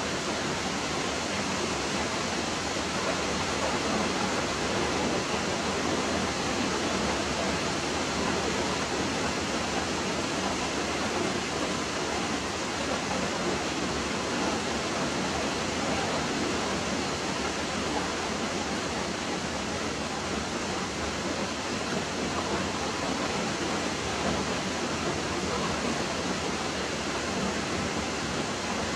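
A steady, even hiss with no distinct sounds standing out of it.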